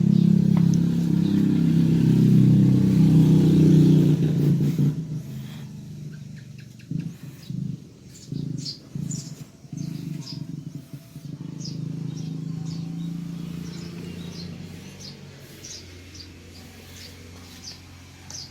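A low motor hum, loud for about the first five seconds and then fading away, with brief low bursts in the middle. Short high bird chirps repeat through the second half.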